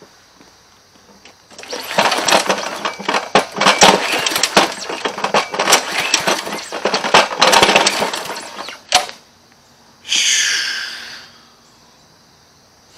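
Briggs & Stratton 140cc engine on a Cub Cadet wheeled string trimmer sputtering and clattering roughly for about seven seconds, then cutting out. It is a hard-starting engine whose carburettor needs cleaning. About a second later comes a brief high squeal.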